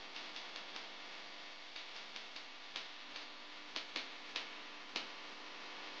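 A steady hiss with a run of about fourteen sharp, irregularly spaced clicks, the loudest of them in the second half.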